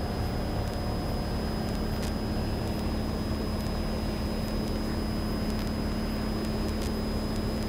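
Cessna 182's piston engine and propeller droning steadily in cruise, heard from inside the cabin together with the rush of air.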